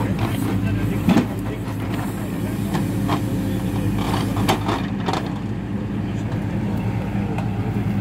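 Hidromek 102B backhoe loader's diesel engine running steadily while the backhoe digs and dumps earth, with a sharp knock about a second in and several lighter knocks of the bucket and arm after it.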